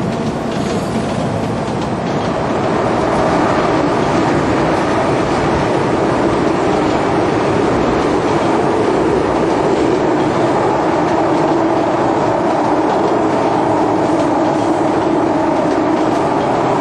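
Caracas Metro train car running, heard from inside the passenger car: a steady rail and running noise that grows a little louder about three seconds in, then holds.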